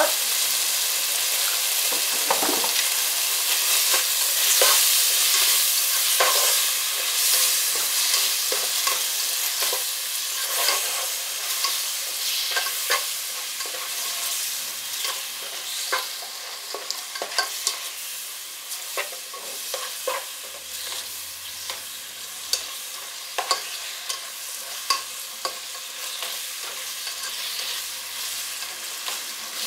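Sliced beef sizzling in oil in a pot while being stirred and turned with a plastic slotted spatula. A steady sizzle, strongest in the first few seconds, with frequent sharp scrapes and taps of the spatula against the pot.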